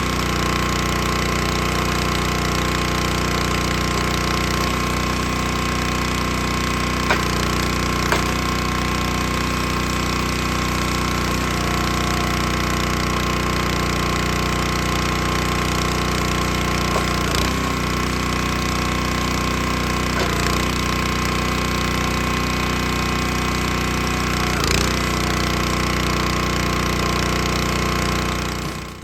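A small gasoline engine running at a steady, unchanging speed, with a few short knocks over it. The sound cuts off suddenly near the end.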